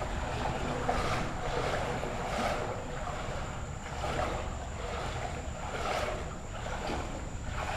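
Creek water rushing and splashing, with soft swishes about once a second as legs wade through the current while following a hooked trout.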